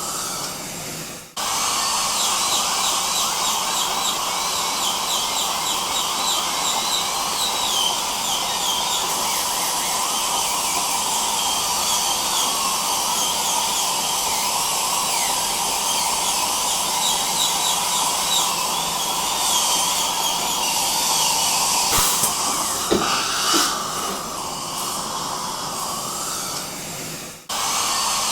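Dental drill whining over the hiss of dental suction in a continuous whir, cut off briefly about a second in and again near the end, with a few clicks near the end.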